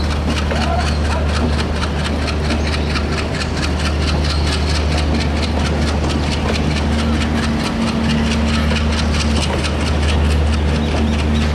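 WDM-3A diesel locomotive's ALCO 16-cylinder engine running under load as it hauls a passenger train, with a deep, steady rumble and a fast, even chatter over it. The engine note strengthens for a few seconds just past the middle.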